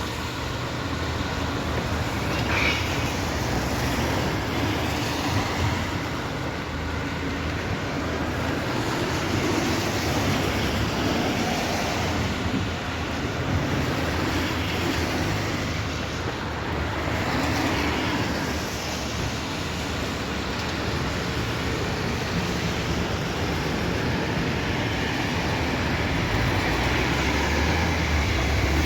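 A train passing, a steady, even noise with a low hum.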